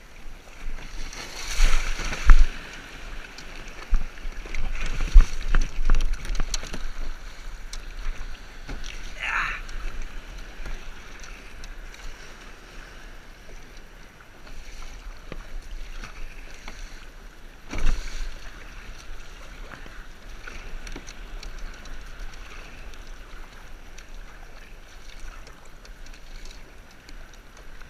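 Water splashing and washing around a plastic sit-on-top kayak as it is paddled out through small breaking surf: loud splashes for the first several seconds, then a quieter steady wash of paddle strokes in calmer water. A short rising-and-falling squeal comes about nine seconds in, and a single hard splash or knock about eighteen seconds in, over a constant low wind rumble on the head-mounted action camera's microphone.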